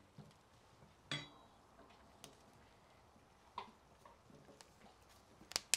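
Light clicks and taps of a plastic spoon against a clay pot as pork ribs are stirred. One sharp click about a second in, a few faint ticks, then a quick cluster of clicks near the end.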